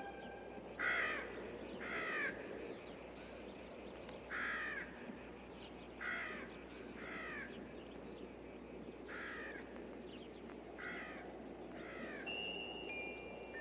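Crows cawing, about eight short caws, singly and in pairs, over a faint steady hiss. Near the end a high held note comes in.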